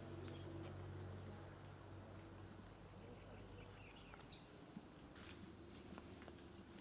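Faint forest ambience: a steady, high-pitched insect trill with a pulsing texture, broken by a short high chirp about one and a half seconds in and another about four seconds in.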